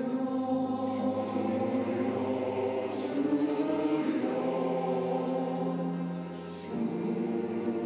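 Church choir singing a hymn in long held chords, the chord changing about four seconds in and again near the end.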